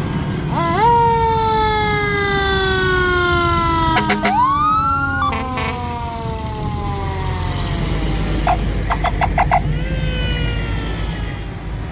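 Fire truck mechanical siren wound up briefly, then coasting down in a long falling wail lasting about six seconds. Partway through, a second siren glides up, and there are clusters of short blasts around the middle and again near the end. The siren gets another short wind-up near the end, over the steady rumble of truck engines.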